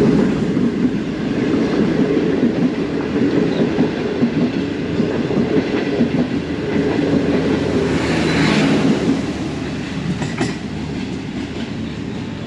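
Long passenger train hauled by a GE GEU40 diesel-electric locomotive, pulling away from a standstill under power, its coaches rolling past with wheels clicking over the rail joints. A steady low rumble that eases slightly near the end.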